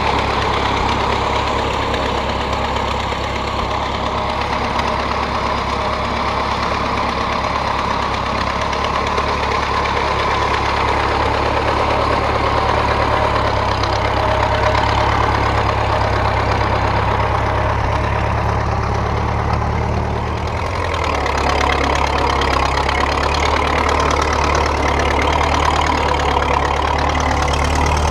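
1927 Model T Ford's four-cylinder flathead engine running steadily as the homemade tractor pulls a walking plow. About twenty seconds in it dips briefly and then runs on at a lower pitch.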